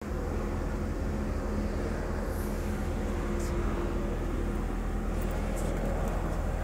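Mitsubishi Montero II engine idling steadily.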